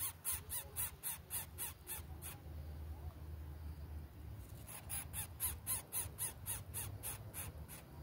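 Greater coucal nestling begging calls: a rapid series of short raspy notes, about five a second, in two bouts, the first stopping about two and a half seconds in and the second starting about four and a half seconds in, as the parent arrives to feed it.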